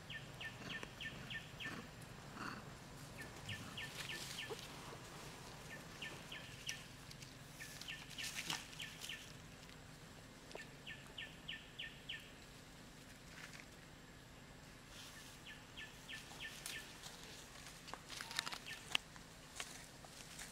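Outdoor ambience with a small animal chirping: runs of five or six quick high notes, each run about a second long, coming back every few seconds. Scattered short clicks and rustles break in, the sharpest near the end.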